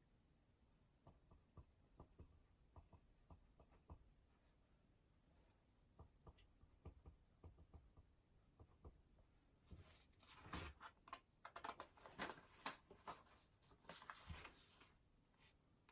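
Quiet desk sounds of someone studying: faint scattered taps and clicks for the first nine seconds or so, then a louder run of paper scratching and rustling from about ten to fifteen seconds in.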